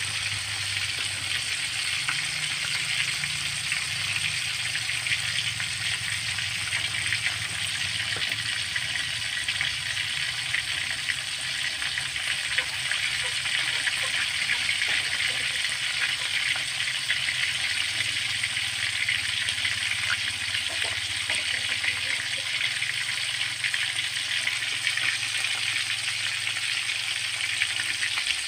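Milkfish pieces frying in hot oil in a steel wok: a steady sizzle with fine crackling throughout, over a faint low hum.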